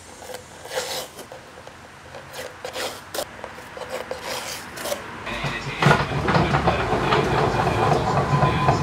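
Irregular hand strokes scraping and rubbing on wood, like filing or sanding a box part. About five seconds in, a louder steady machine noise with a low hum starts and continues.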